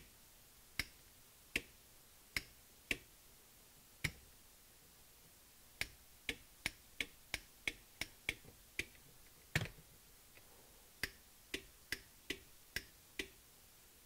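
Sharp clicks of rocker switches, a push button and 12-volt automotive relays snapping on and off as the lights are switched: spaced out at first, then a quick run of about three a second in the middle, then more at roughly half-second gaps.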